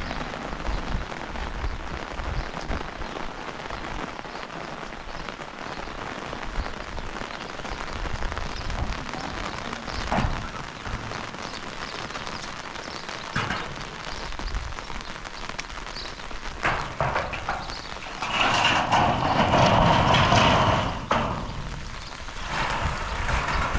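Steady rain falling, with scattered drop ticks and a louder rushing stretch about three-quarters of the way through.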